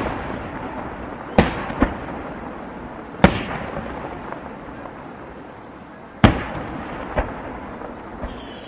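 Aerial firework shells bursting: five sharp booms over about six seconds, three of them louder than the rest. Each boom trails off in a long fading echo.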